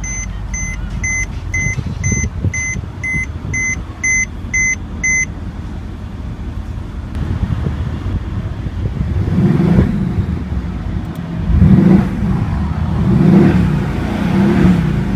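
An electronic car warning beep repeating about twice a second for about five seconds over a running engine, then the 2014 Mercedes-Benz CLS63 AMG's 5.5-litre bi-turbo V8 revved four times in the second half, each rev rising and falling.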